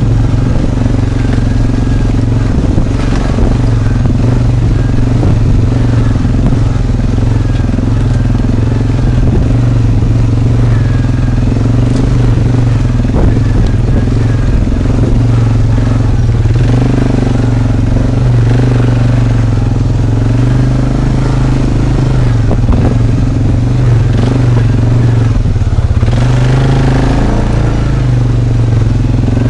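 ATV engine running steadily at low speed while the quad crawls over a rough, rocky trail, with scattered knocks and rattles. The engine revs up briefly a little before the end.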